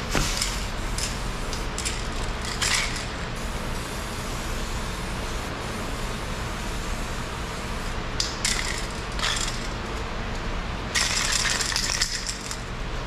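Aerosol spray can sprayed in short hissing bursts, with a longer burst of about a second near the end, alongside the metallic rattle of the can being handled, over a steady low shop hum.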